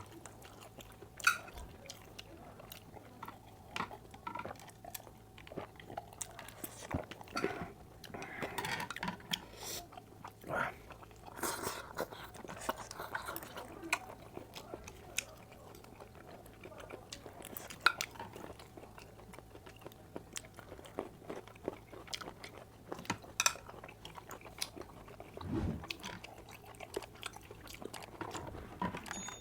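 Close-miked chewing and wet mouth sounds of a person eating, with scattered short clicks of cutlery against dishes.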